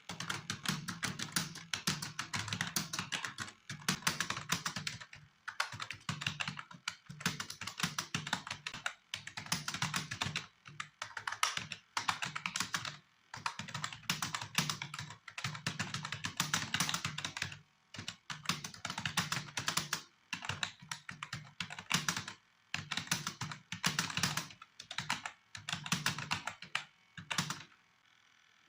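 Computer keyboard typed on fast in a typing test: rapid runs of key clicks in bursts of a second or two, broken by short pauses, stopping shortly before the end.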